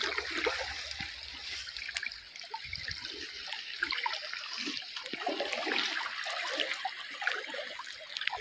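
Shallow river water sloshing and trickling around a wader's hands and legs as he gathers in a cast net, with small irregular splashes.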